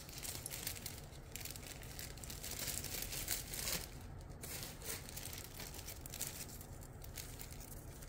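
Thin plastic bags crinkling as model-kit parts in their bags are handled, in bursts with short pauses, loudest a little over three seconds in.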